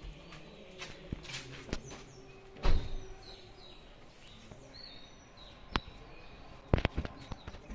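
Outdoor ambience with small birds chirping now and then, broken by a few sharp knocks or thumps, the loudest nearly three seconds in and a quick pair near the end.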